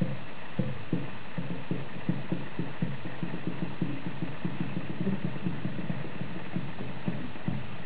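Pages of a photo flipbook flicking off the thumb one after another, a quick run of soft taps at about four to five a second over a steady hiss.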